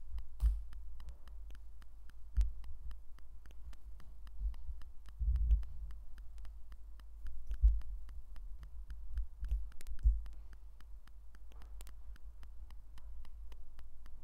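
Small plastic Lego pieces being handled and snapped together by hand: many short clicks, with a few soft low thumps over a steady low hum.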